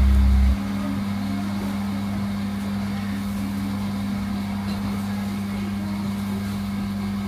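Steady low machine hum. A deeper rumble under it cuts off suddenly about half a second in.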